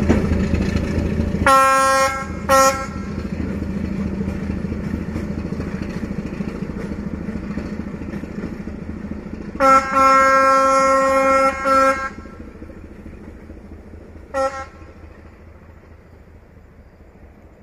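D12E diesel locomotive horn sounding two short toots, then a long blast broken twice, then one more short toot, over the locomotive's low engine rumble, which fades steadily.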